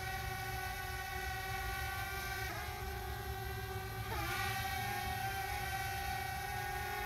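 Quadcopter drone's propellers whining steadily as it flies, the pitch briefly shifting about two and a half and four seconds in as the motors change speed to manoeuvre.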